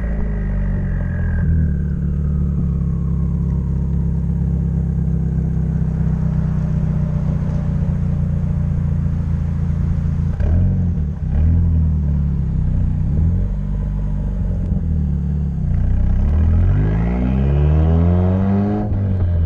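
Mazdaspeed3's turbocharged 2.3-litre four-cylinder, fitted with a BNR S4 turbo, equal-length tubular manifold, external wastegate and muffler and resonator delete, running with a steady low drone. From about ten seconds in it is revved repeatedly, its pitch rising and falling, with higher revs near the end.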